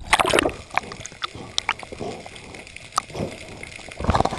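Water sloshing and splashing, with a louder splash at the start and another near the end, and scattered sharp clicks in between.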